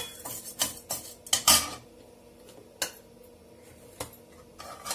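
Perforated metal ladle scraping and knocking against an aluminium kadai while stirring urad dal roasting in oil. A cluster of scrapes and taps comes in the first second and a half, then a few single knocks.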